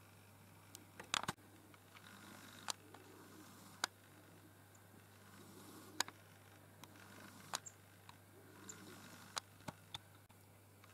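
Faint room tone with a steady low hum, broken by about a dozen irregular sharp clicks and taps, several of them in a quick cluster about a second in.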